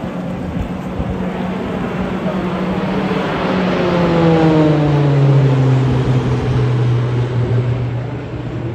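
T-6 Texan II turboprop trainer flying past low overhead: a loud propeller drone that swells and then drops in pitch midway as the aircraft passes, easing off toward the end.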